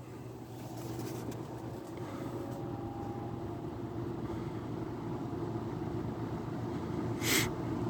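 Box fan with a Kmart P23 motor and blade, cold-started and switched up to medium speed. It runs with a steady motor hum and the whoosh of its blade, growing louder over the first couple of seconds as it speeds up. A brief hiss comes near the end.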